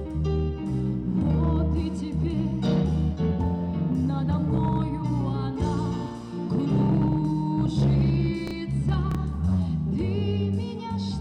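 A song with instrumental accompaniment and a singing voice over a steady bass line.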